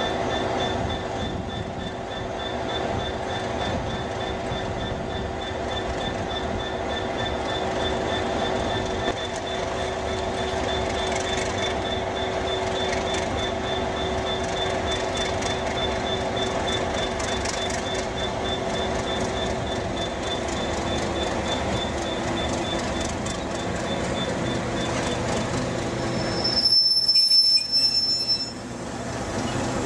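DRS Class 37 diesel locomotives' English Electric V12 engines running with their characteristic growl as the locomotives move off. Near the end a loud, high wheel squeal lasts about two seconds as a locomotive passes close.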